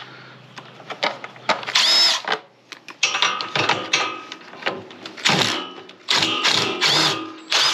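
Cordless power driver spinning out the 8 mm bolts on a portable generator's air filter box: one short pull of the trigger about two seconds in, then a string of quick pulls from about three seconds on, the motor whining up and down each time.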